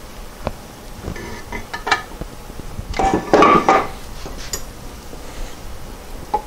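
Metal hand tool clinking, tapping and scraping against the transmission case while prying at the shifter shaft seal, with a louder rasping, ringing scrape about three seconds in.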